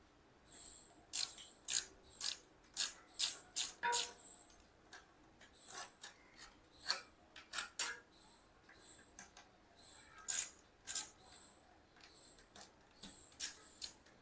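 Irregular sharp metallic clicks and short scraping strokes, some with a brief high squeak: hand tools working on bicycle parts.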